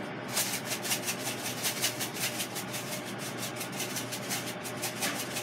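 Dried crushed pepper flakes rattling in a plastic bag as it is shaken quickly and repeatedly, sprinkling them over a pizza. The shakes come in a fast, steady rhythm of short scratchy rattles, starting a moment in.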